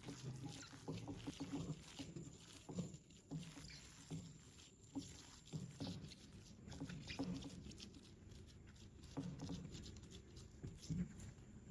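Irregular light taps, scrapes and rustles of food being handled and prepared.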